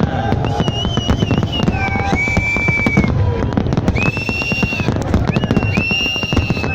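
Fireworks going off in a dense, rapid crackle of bangs, with several held high-pitched tones of a second or two sounding over them.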